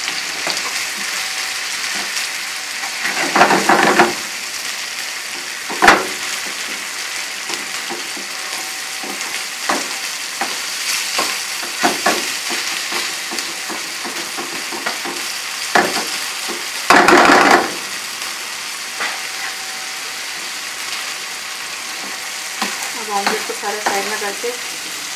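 Chopped spinach and tomato masala sizzling in a frying pan while a spatula stirs it, with two louder bursts of scraping and a few sharp knocks of the spatula against the pan.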